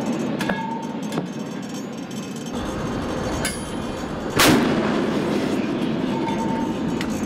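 MK 45 5-inch naval gun firing a single round about four and a half seconds in: one sharp blast with a rumble trailing after it, over steady background noise.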